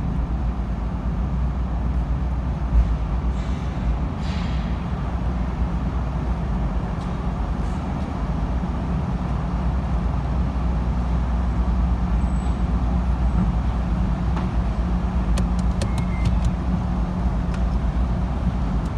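Steady low rumble of a camper van's engine running, with vehicle noise throughout and a few faint clicks near the end.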